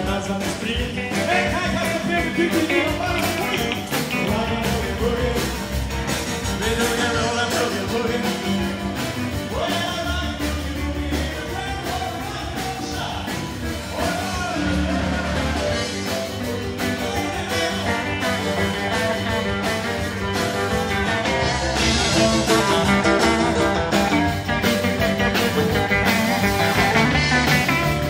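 Live rock and roll band playing, with electric guitar over a steady beat; the music gets louder about two-thirds of the way through.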